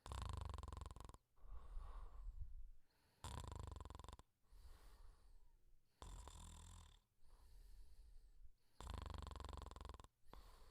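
Quiet snoring: a rattling snore of about a second alternating with a softer breath, repeating steadily about every three seconds.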